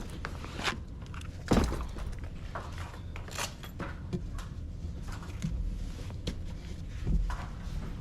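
Irregular knocks, thumps and light rattles of a person moving about and handling gear, with the loudest thump about one and a half seconds in and another near the end.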